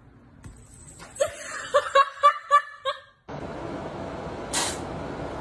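A person laughing in a quick run of about six short bursts over a second and a half. The sound then cuts to a steady background hiss with one brief burst of noise near the end.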